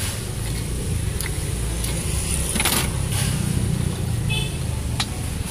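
Steady low rumble of road traffic, with a car engine running close by, and a few short sharp knocks over it.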